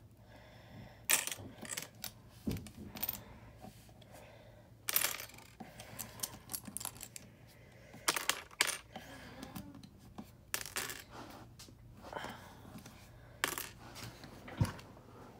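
Small plastic LEGO pieces clicking and clattering as they are handled and set down, in a dozen or so scattered, irregular clicks.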